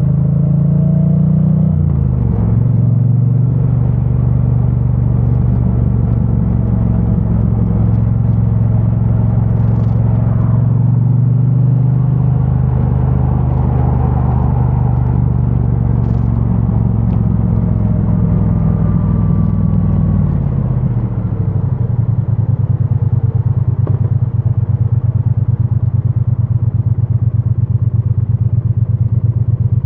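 2022 Triumph Bonneville T100's parallel-twin engine with its stock exhaust, running under way. Its pitch drops briefly about two seconds in, shifts again around twelve seconds, and falls steadily as the bike slows about twenty seconds in.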